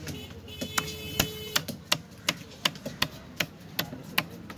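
Large fish-cutting knife chopping yellow trevally into chunks on a wooden log block, in regular sharp chops about three a second.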